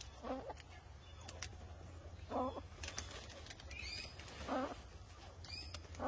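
Tragopans calling: three short, low calls about two seconds apart, with two brief high chirps in the second half and faint clicks between them.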